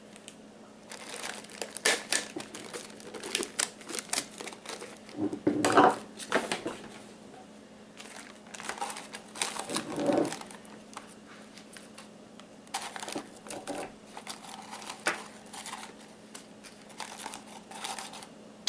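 Paper coffee filters crinkling and rustling in irregular bursts as they are pressed down over the mouths of glass jars and held with rubber bands, with a couple of louder handling noises.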